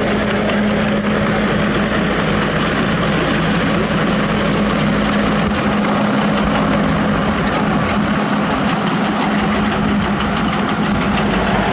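Diesel engines of Komatsu PC200 hydraulic excavators running steadily as they dig limestone rubble, with a steady low hum that fades near the end.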